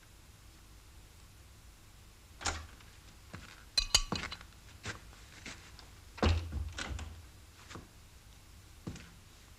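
Household clinks and knocks: dishes and cutlery clinking and a door being opened, about a dozen separate sharp strokes starting a couple of seconds in. The loudest is a ringing metallic chink about four seconds in; a duller thump follows about six seconds in.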